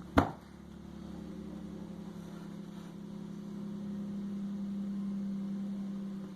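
A steady low electrical-sounding hum, with one sharp knock about a quarter second in.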